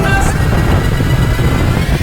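Background music with held notes, over a steady low rumble of wind on the microphone.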